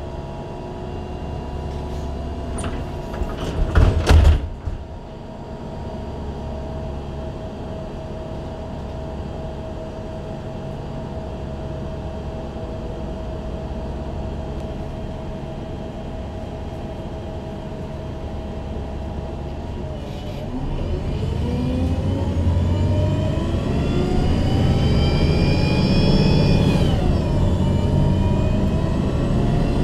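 MAN Lion's City G articulated CNG bus heard from inside: the engine idles steadily, with a short loud burst of noise about four seconds in. About twenty seconds in the bus pulls away, and the engine and Voith automatic gearbox rise in a climbing whine. Near the end the pitch drops at a gear change, then climbs again.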